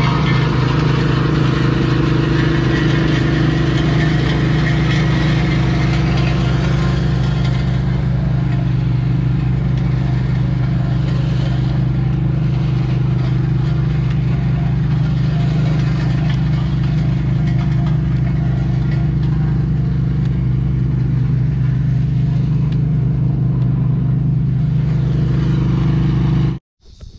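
Heavy construction machine's diesel engine running at a steady speed with a constant hum and no change in pitch. It cuts off abruptly near the end.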